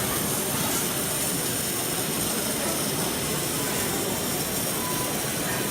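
Steady mechanical noise mixed with the background din of a busy exhibition hall, even and unbroken throughout.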